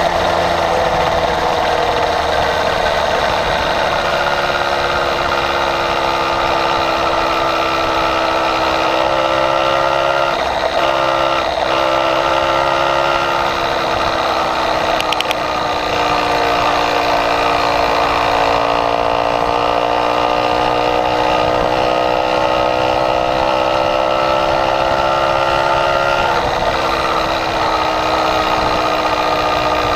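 Small motorized bicycle engine running under way at a steady cruise. Its pitch drifts gently and dips briefly about ten seconds in and again near the end.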